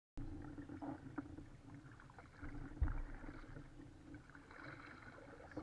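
Kayak paddling: the paddle dips and water sloshes against the plastic hull, with small knocks and one low thump about three seconds in.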